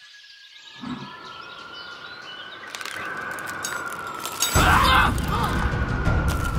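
Cartoon outdoor mountain ambience: faint birds chirping, then a steady whistling wind that builds. About four and a half seconds in, a loud rush of wind comes in.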